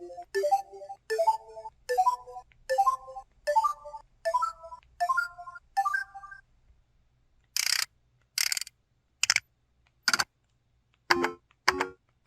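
LG Cyon LU6000 phone's built-in system sound effects from its Yamaha YMU792 synth chip: a run of short chord-like chimes, about one every 0.7 seconds, each a step higher in pitch. After a short pause come two brief hissing sweeps, two sharp clicks, and then a quick series of short electronic blips.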